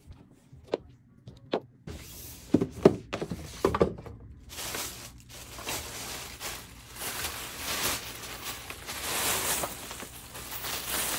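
A few taps and knocks as a shoe box is handled and opened, then plastic wrapping crinkling and rustling for the rest of the time as it is pulled out of the box.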